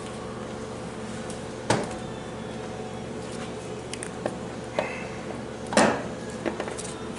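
Tools and metal transmission parts being handled: a few scattered clinks and knocks, two of them louder (about two seconds in and near six seconds), over a steady low hum.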